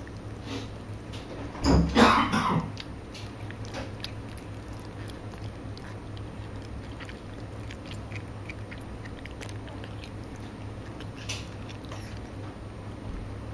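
Mother cat licking and chewing at her newborn kitten to clean it just after birth: soft, scattered wet licking and chewing clicks, with one brief louder noise about two seconds in.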